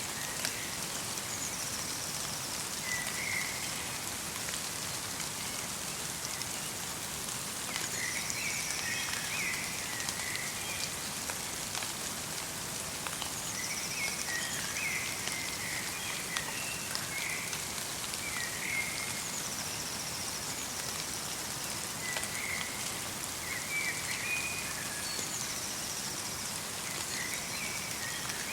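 Steady light rain falling in a forest, a fine hiss with scattered drop ticks. Over it a small bird sings a short, chirpy phrase that comes back every five or six seconds.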